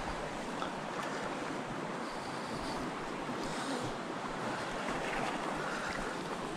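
Steady rushing of a small rocky creek's flowing water.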